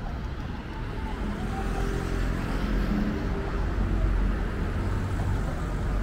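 City road traffic: vehicles passing with a low engine and tyre rumble that grows louder after about a second. A few faint short tones sound above it.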